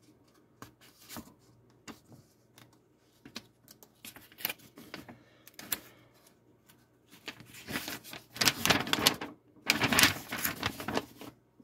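Paper instruction booklet rustling and crinkling as it is handled and its pages turned, in irregular short rustles and clicks, with two louder bouts of rustling in the second half.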